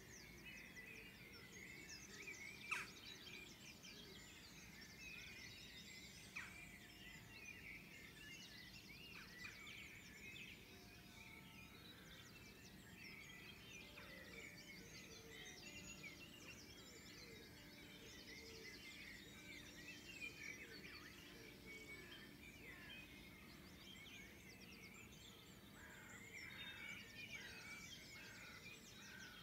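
Dawn chorus: many songbirds singing at once, their songs and calls overlapping continuously and faint over a steady low background hiss. One sharp click stands out about three seconds in.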